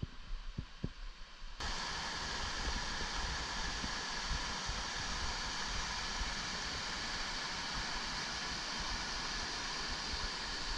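Steady rushing of a small mountain creek running over boulders in small cascades. It cuts in suddenly about a second and a half in, after a few faint low thumps.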